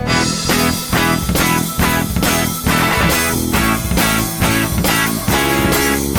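Background rock music with electric guitar and bass and a steady beat.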